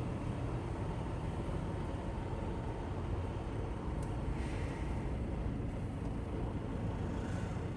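Steady low rumble of a tractor-trailer's diesel engine, heard from inside the truck's cab.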